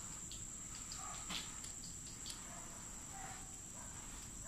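Crickets chirring steadily at a high pitch, with a few faint clicks, the clearest about a second in.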